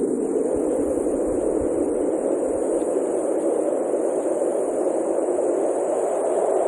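Steady, unchanging static-like noise: a dense low hiss with a separate thin high hiss above it, and no distinct events.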